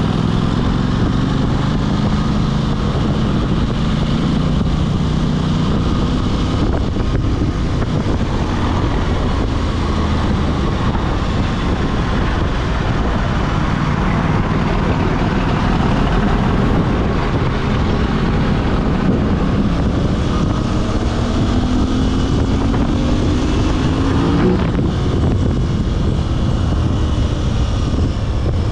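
Aprilia RS 660's parallel-twin engine under way with wind rushing past the microphone; the revs ease off at first, then climb steadily for about four seconds near the end before dropping sharply at a gear change.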